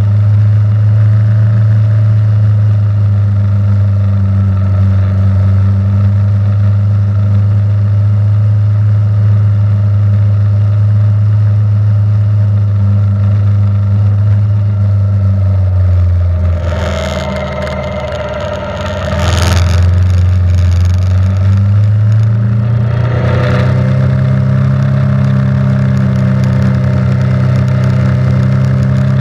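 A vehicle engine running steadily at an even speed. About sixteen seconds in it slows and quietens for a few seconds, with some bursts of hissing noise, then speeds back up and holds a slightly higher pitch.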